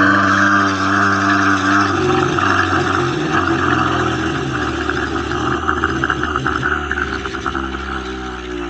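Monster growl sound effect: one long, deep, guttural growl, held steady at first and turning rough and rattling about two seconds in, easing slightly near the end.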